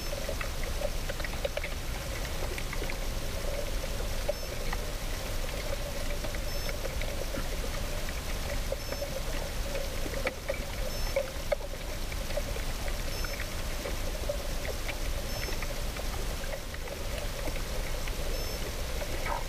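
Steady sound of moving water, with scattered small clicks.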